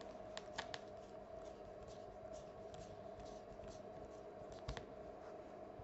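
Faint scattered clicks and light scratching of a precision screwdriver driving small screws into a smartphone's mid-frame, over a faint steady hum.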